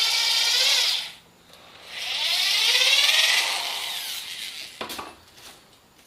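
Power drill boring a large hole into a dildo: the motor whines, stops about a second in, then spins up again with a rising whine and winds down. A few sharp clicks follow near the end.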